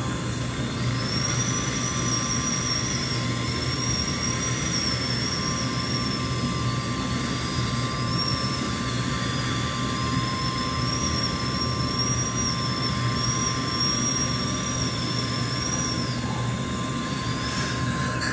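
High-speed dental air-turbine drill whining, its pitch dipping and recovering as it cuts into the tooth to prepare it for a filling, starting about a second in and stopping near the end. Under it the dental suction runs with a steady hiss and hum.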